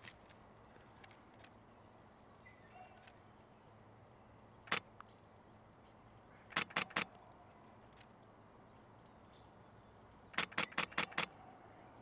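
Camera shutter firing in bursts: a single click, then three in quick succession a couple of seconds later, then a rapid run of six near the end.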